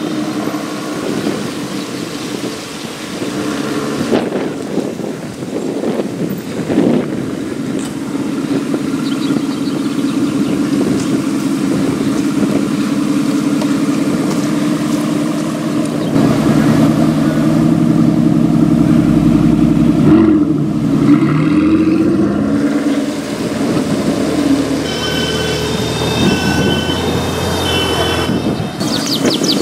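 Aston Martin Vanquish S V12 idling and rolling slowly in traffic, with a steady low exhaust note; from about sixteen seconds in the engine gets louder and deeper, with a couple of short throttle blips around twenty seconds in.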